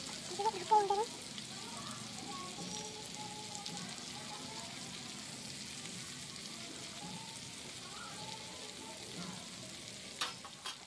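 Marinated whole chicken sizzling steadily as it fries in a pan over a wood fire. A brief voice-like sound stands out about a second in, and two sharp clicks come near the end.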